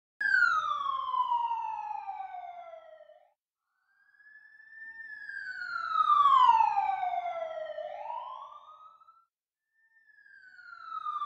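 Emergency-vehicle siren wailing: a high tone that falls slowly in pitch over about three seconds, heard three times with short gaps between. The second wail sweeps quickly back up at its end.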